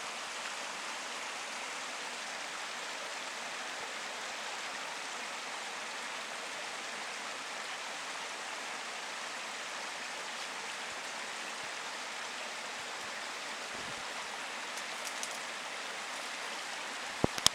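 Mountain stream rushing steadily over rocks. A few sharp clicks near the end.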